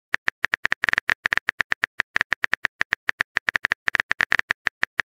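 Rapid, uneven keyboard typing clicks, about eight a second, each a short bright tick, as a text message is typed out letter by letter.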